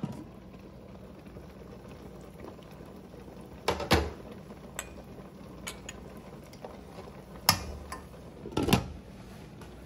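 Pot of water and vegetables at a steady rolling boil, bubbling throughout. A steel ladle clinks and knocks against the pot several times as eggs are lowered into the boiling water.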